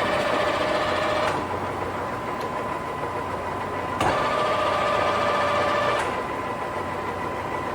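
Lion C13 engine lathe running steadily, with a constant hum. Twice its rapid traverse is engaged, each time adding a louder whine for about two seconds: once at the start and again about four seconds in.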